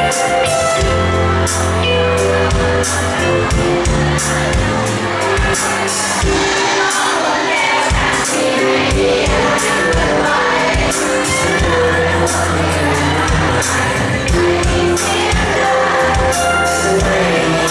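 Male vocalist singing a Thai pop song live into a microphone over loud amplified backing music with bass and a regular drum beat, through a bar's PA.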